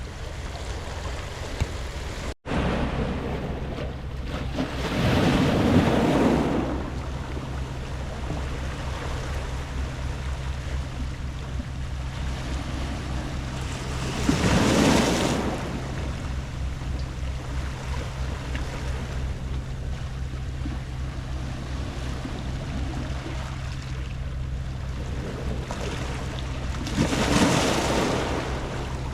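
Sea waves washing onto a round-pebble beach, with three louder surges of surf several seconds apart over a steady wash and a low rumble. About two seconds in, the sound cuts out for an instant.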